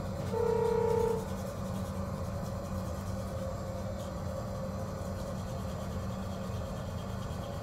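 Steady low rumble of a moving passenger train, heard inside its toilet compartment. A brief steady tone sounds for about a second near the start.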